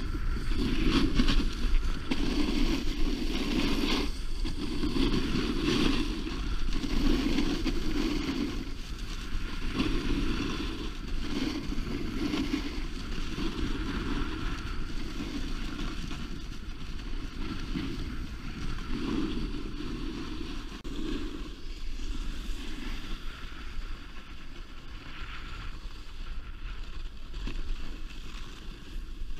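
Snowboard sliding and carving over firm groomed snow: a rough scraping hiss that swells and fades about once a second as the board turns, with wind rumbling on the action camera's microphone. The swells grow weaker for the last several seconds.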